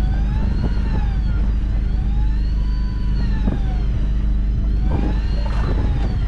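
Electric fishing reel motor whining as it winds in a heavy fish, its pitch rising and falling in slow swells about every two and a half seconds as the load changes, over a steady low drone of the boat's engine.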